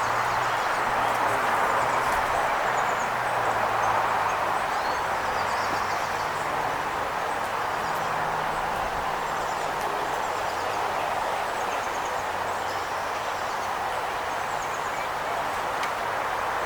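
Steady rushing outdoor noise, which may be wind or distant traffic, with a low hum underneath and faint, high songbird chirps now and then.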